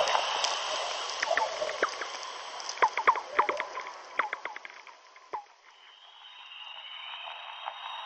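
Electromagnetic plasma waves from space, recorded and converted to sound. Over a steady hiss comes a run of quick chirps that fall steeply in pitch, much like birdsong. The sound fades low about halfway through, then the hiss slowly returns.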